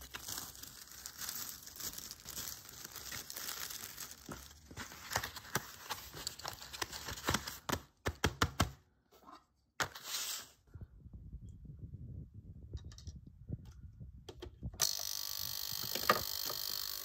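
Watch case parts rubbed back and forth on a flat abrasive block for the first half, a scratchy rasping broken by sharp clicks, to give them a straight-grain finish. Then small parts clink as they go into the plastic basket of an ultrasonic cleaner, which switches on about fifteen seconds in with a steady high hiss.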